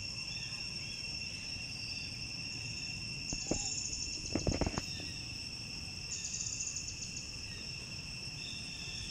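Insects droning steadily on two high-pitched notes, with short pulsing trills about three and six seconds in. A few soft knocks and rustles a little past the middle are the loudest sounds.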